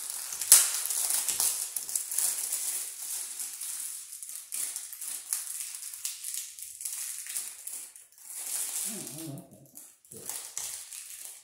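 Clear plastic packaging crinkling as a switch cover plate is unwrapped, a dense rustle that thins out after about eight seconds.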